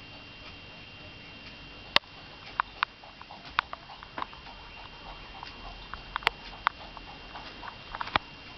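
Scattered, irregular sharp clicks and taps, the loudest about two seconds in and a cluster near the end, over a faint steady high-pitched whine.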